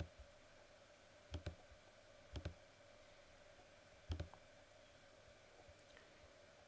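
Computer mouse clicking on keys of an on-screen calculator emulator: four short clicks spaced irregularly, a second or more apart, most heard as a quick press-and-release pair, over a faint steady hum.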